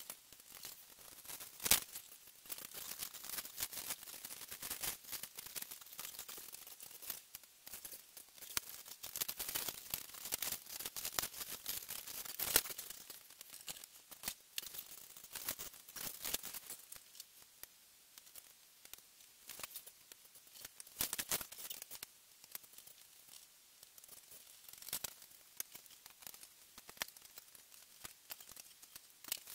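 Hard plastic model-kit parts clicking, tapping and rattling as they are handled and fitted together, with light rustling. Sharp clicks are scattered throughout, the loudest about two seconds in and again about twelve seconds in.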